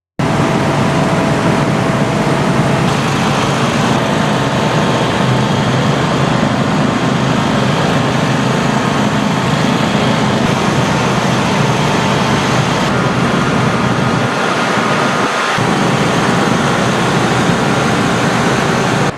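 Many small engines of riding lawnmowers and tractors running together in slow traffic, a loud steady rumble that cuts in suddenly at the start.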